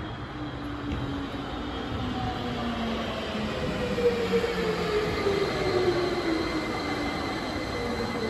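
Uijeongbu LRT Siemens VAL 208 rubber-tyred light-metro train pulling into the station. Its drive whine falls slowly in pitch as it slows, over a steady running rumble.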